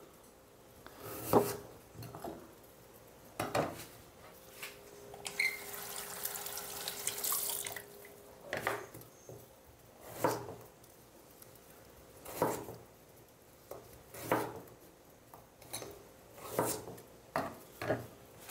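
Knife cutting down onto a wooden chopping board, one slow stroke every second or two, about ten strokes in all. Water runs for a couple of seconds, like a tap, about five seconds in.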